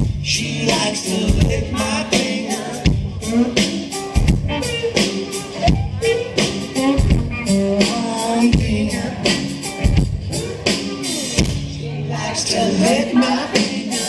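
Live rock band playing: electric guitar and drum kit, with singing, over a steady drum beat.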